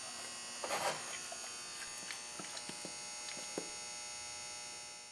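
Steady electrical hum made of several fixed tones, with a brief louder rustle a little under a second in and a few faint light clicks later.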